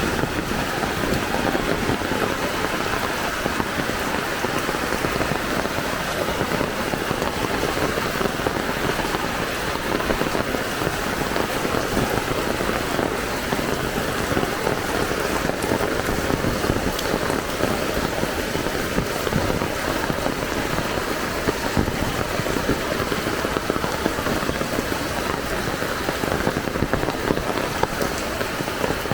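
Heavy rain falling steadily, a dense even hiss with fine pattering of drops striking hard surfaces.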